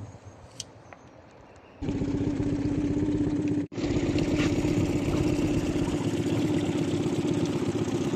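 A boat's outboard motor starts running steadily about two seconds in, with a low hum and rapid pulsing. It cuts out for an instant in the middle, then runs on. Before it, only faint quiet sounds.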